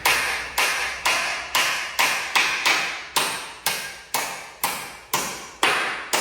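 Hammer driving nails into wooden battens, struck steadily about twice a second, each blow ringing briefly.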